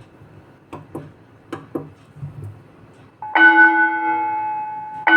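The School Bell Pro automatic school bell sounding its period bell tone. After a few faint clicks, a bell is struck about three seconds in and rings out, slowly fading, and it is struck again right at the end.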